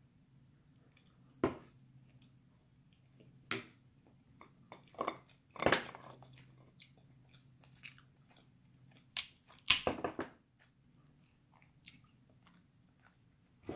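Crab legs being eaten: shells cracked and snapped apart by hand and the meat chewed, a handful of sharp cracks scattered through, the loudest cluster about ten seconds in, over a faint low hum.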